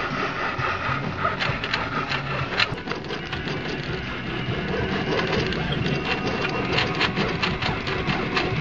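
Stepper motors of a homemade CNC pen plotter running as the pen carriage moves, humming at pitches that shift every second or so, with many short clicks.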